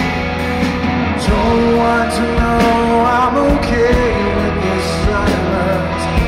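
Live rock band playing: distorted electric guitars, bass and a drum kit with cymbal hits, under a male lead vocal.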